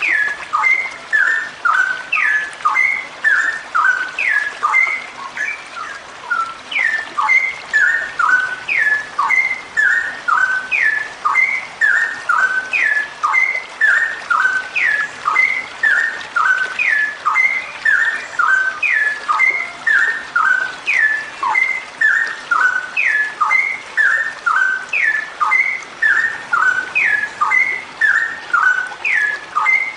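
Female straw-headed bulbul (cucak rowo) calling in a long unbroken run of short whistled notes, many of them sliding down in pitch, two or three notes a second in a repeating pattern.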